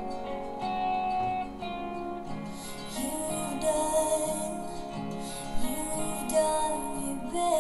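Guitar music with a singing voice playing through a small bookshelf speaker driven by a Bose 5-channel car amplifier from a Mazda RX-8 on test, the amplifier channel passing audio cleanly.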